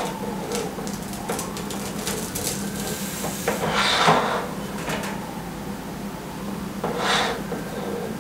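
Electric sandwich press being handled: its hinged lid lifted and lowered with light clicks and knocks, and two short scraping noises about four and seven seconds in. A steady low hum runs underneath.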